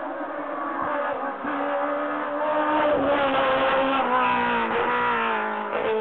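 Race car engine at high revs approaching up a hill climb, growing louder, its pitch sinking as it slows for a hairpin, with a brief break in the note near the end.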